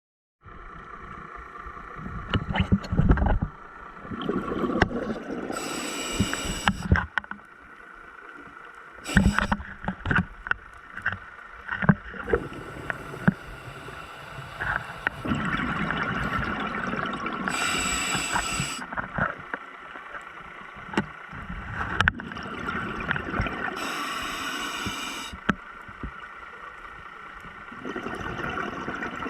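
Scuba diver breathing through a regulator underwater: long hissing breaths about every six seconds and gurgling exhaled bubbles, with scattered clicks and knocks.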